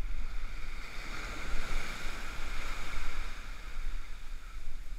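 Ocean surf washing in around the angler, the foam hiss swelling up through the middle and easing off toward the end, over a steady low rumble of wind on the microphone.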